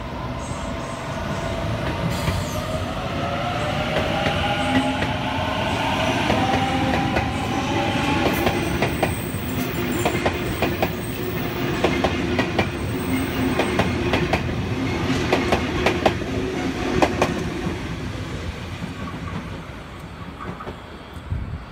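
Sydney Trains Waratah double-deck electric train pulling away and passing close by. Its traction motors whine, rising in pitch as it accelerates over the first several seconds. Then the wheels clack sharply over rail joints as the carriages go by, and the sound fades near the end.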